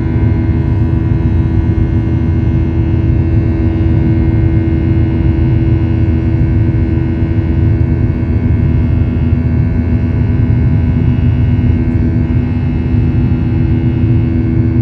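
Jet airliner's engines during takeoff, heard from inside the cabin: a loud, steady rumble with a constant hum of engine tones.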